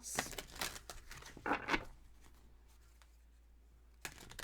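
Tarot cards being handled and shuffled: quick papery rustles and flicks for about two seconds, a pause, then more flicks near the end.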